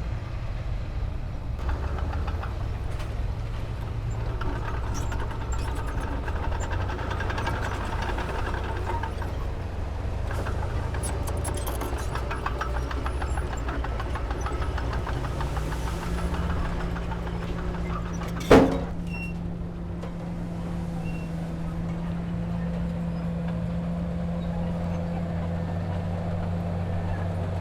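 Diesel engine of heavy earthmoving machinery running steadily. About fifteen seconds in the engine revs up and holds at the higher pitch. A few seconds later there is a single loud bang.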